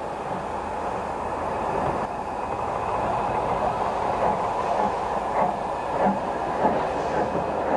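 Narrow-gauge 2-6-0 steam tank locomotive hauling a short train of coaches along street track, a steady rolling and steam noise that grows a little over the first few seconds.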